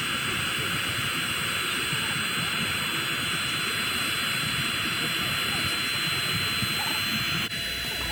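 Steady rushing noise with a low rumble underneath, cutting off abruptly about seven and a half seconds in.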